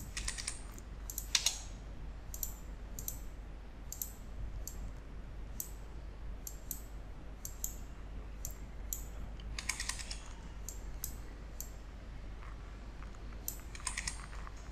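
Scattered clicks of a computer mouse and keyboard, with quick runs of keystrokes about ten seconds in and again near the end, over a faint low steady hum.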